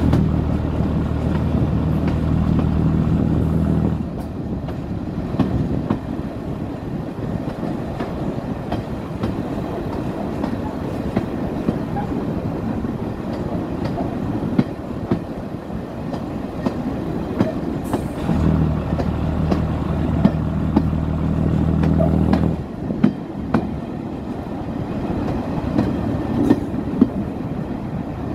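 Heritage diesel multiple unit running along the line, its wheels clicking over rail joints. A steady low hum comes in for about four seconds at the start and again past the middle.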